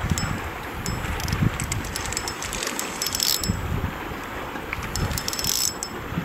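Fishing reel clicking irregularly while a hooked smallmouth bass pulls on the line, over wind on the microphone and choppy water lapping at the kayak.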